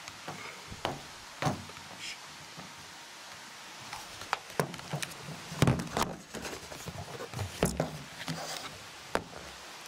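A series of irregular knocks and clicks, most frequent and loudest between about four and eight seconds in, over a steady low hiss.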